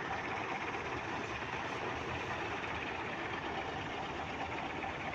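Heavy dumper truck's diesel engine running steadily.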